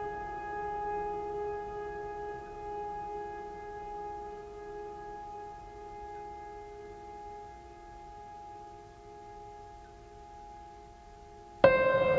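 Background music: a held, drone-like chord of sustained tones that slowly fades, then a new, louder chord comes in suddenly near the end.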